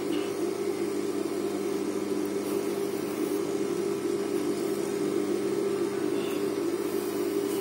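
Steady electric motor hum from an industrial sewing machine's motor running idle while the needle is not stitching.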